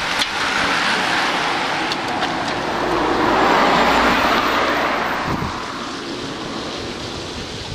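A vehicle passing close by: a rushing noise that swells to its loudest about four seconds in, with a low rumble, then fades.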